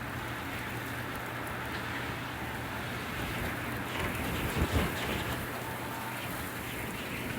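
Winter wind blowing in a steady rush, swelling into a gust about halfway with a couple of brief low buffets.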